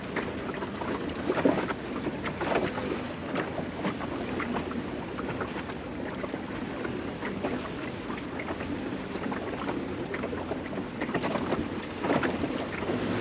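Water lapping and splashing against the hull of a small wooden sailing dinghy under way, with wind buffeting the microphone; a little louder near the end.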